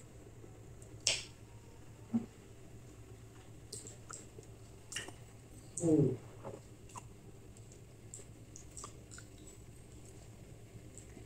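Quiet eating sounds of a person taking soft, milky semai from a small bowl with his fingers: scattered mouth clicks and smacks, a sharp click about a second in. About six seconds in, a short voiced 'mm' falls in pitch with pursed lips, a sound of relish.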